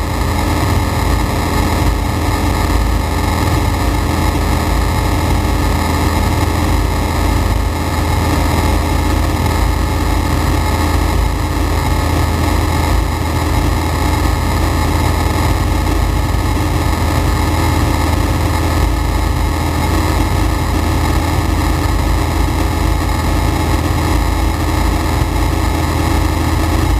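Flight Design CTLS light aircraft's Rotax 912 four-cylinder engine and propeller running steadily at full power through the climb-out after takeoff, heard as a loud, even drone inside the cockpit.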